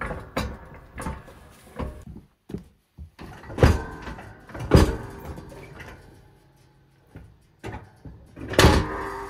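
Metal knocks and clangs from removing a riding mower's steel snow plow attachment, its mounting bolts being pushed out. A few light knocks about twice a second, then heavy ringing clangs a little past three and a half seconds and near five seconds, and another near the end.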